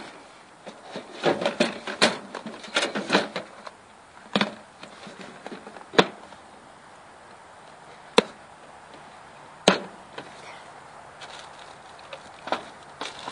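A metal cache box and a plastic case being handled and opened: a run of knocks and rattles in the first few seconds, then single sharp clicks and knocks every couple of seconds.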